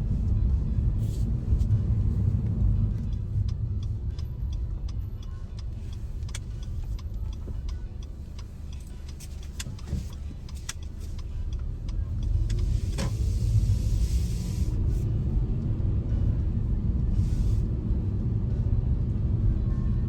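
Car cabin road noise while driving: a steady low rumble of tyres and engine. It eases off in the middle, then builds again with a rising engine note about two thirds through as the car picks up speed. Scattered light clicks run through the middle.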